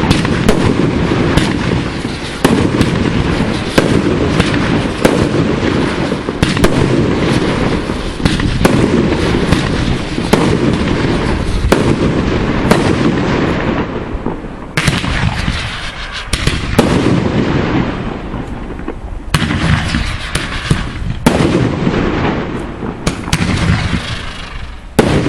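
Fireworks display with shells bursting in quick, continuous succession, several bangs a second with crackling between them, easing briefly twice in the second half before resuming.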